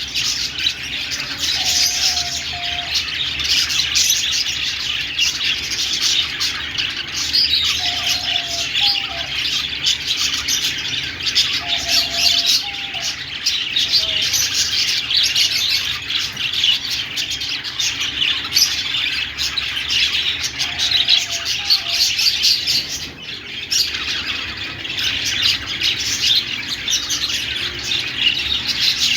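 Budgerigars chattering and chirping continuously in a dense, busy warble, with a few short, lower whistled notes standing out now and then.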